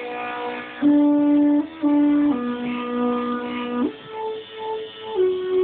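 Stepper motors of a CNC machine playing a tune: a simple melody of held, buzzy notes that change pitch about once a second.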